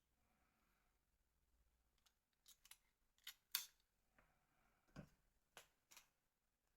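Near silence broken by a few faint, short plastic clicks, about half a dozen, from the flip phone's newly reassembled shell being handled.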